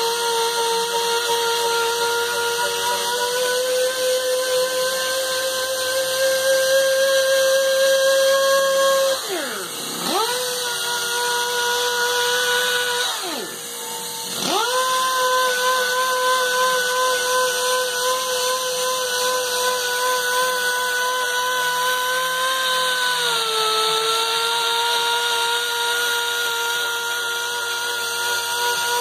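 Dual-action (DA) sander running with 320-grit paper on a cast aluminium supercharger housing, a steady whine. Twice, about ten and fourteen seconds in, it slows almost to a stop and spins back up. Its pitch sags briefly under load a little past the middle.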